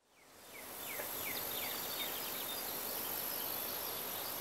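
Outdoor ambience fading in: many short, falling bird chirps over a steady high-pitched insect drone and a soft hiss.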